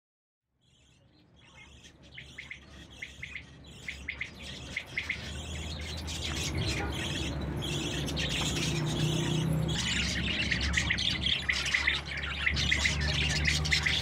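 A flock of caged budgerigars chattering in rapid short chirps and squawks, fading in over the first few seconds and growing louder, over a low steady background rumble.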